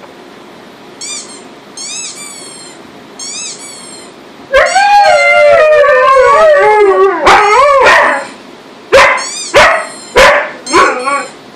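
A rubber duck squeak sound effect plays three times through speakers, short and high-pitched. The two Tamaskan dogs answer with a loud, wavering howl lasting about three seconds, then a run of short, sharp barks.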